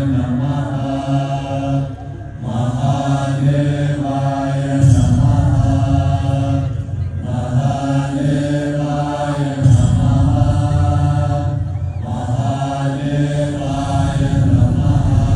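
Chanted mantra sung in repeated phrases of about five seconds, over a deep low drone that swells in and out.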